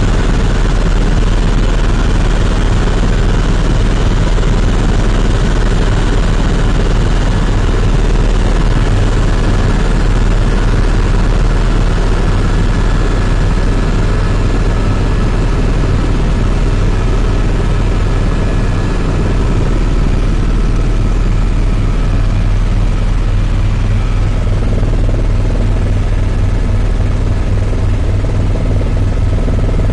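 Helicopter in flight, heard from on board: rotor and turbine engine running steadily, a loud, even low drone.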